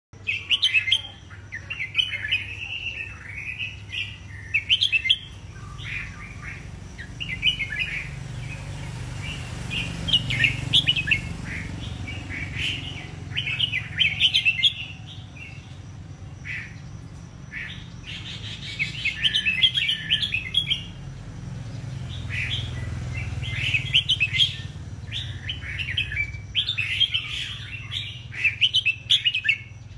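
A caged white (leucistic) red-whiskered bulbul singing: bursts of quick, warbling chirpy phrases repeated every few seconds with short pauses between. A steady low hum lies underneath.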